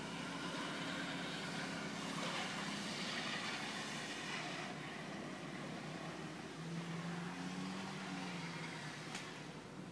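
A car driving past on the wet, snow-covered street: tyre hiss swelling over the first few seconds and then easing, over a low engine hum.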